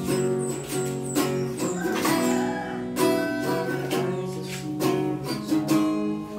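Small acoustic guitar strummed in chords, struck at a steady pace of roughly two strums a second.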